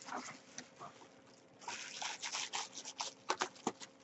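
Clear plastic wrapping crinkling and rustling as it is handled, mostly from about a second and a half in, with a string of short sharp clicks.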